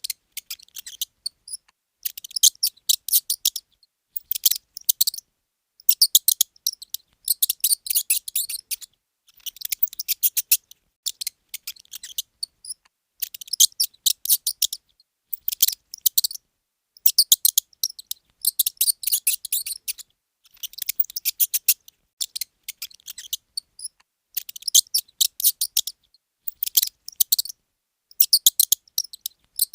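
Mouse squeaking: rapid, very high-pitched squeaks in short clusters, about one cluster every second or two, with brief silences between.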